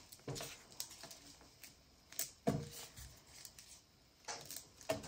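Fabric-covered paper pieces being handled and laid together on a cutting mat: soft, scattered rustles and taps, the strongest about two and a half seconds in.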